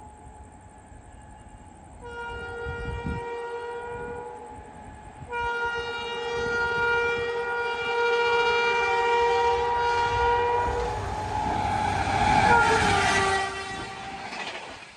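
WAP-7 electric locomotive's horn, sounded as the express approaches at speed: a short blast about two seconds in, then a long blast from about five seconds in. The horn drops in pitch as the locomotive passes, near twelve seconds in, and the rush of the passenger coaches going by at about 130 km/h follows.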